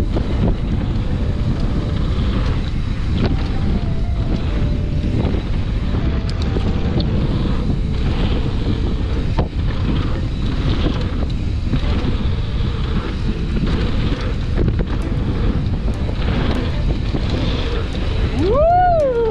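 Heavy wind buffeting the mountain bike rider's camera microphone at speed, with frequent knocks and rattles from the bike over a rough dirt trail. Near the end a short pitched tone rises, dips and rises again, louder than the wind.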